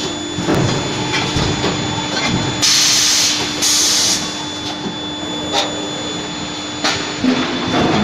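Nut-forging line with a forging manipulator at work: a steady machine hum with scattered knocks and clanks, and two loud hissing bursts close together about three seconds in.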